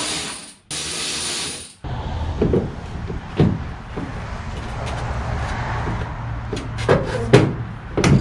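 A cordless drill runs in two bursts of about a second each, backing out the T30 Torx bolts that hold the tail light in. Then come plastic knocks, creaks and rubbing as the 2007–2013 Toyota Tundra's tail light housing is worked loose from its clips, with several sharp knocks near the end.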